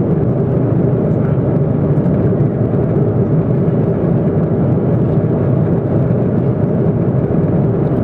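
Steady roar of an aircraft in flight, engine and airflow noise heard from inside the passenger cabin, with no change in level.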